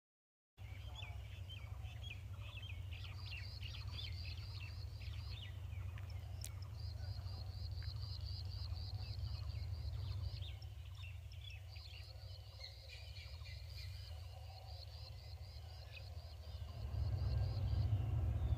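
Wild birds calling in open farmland: many short chirps, then long runs of fast repeated high notes, over a steady low rumble that grows louder near the end.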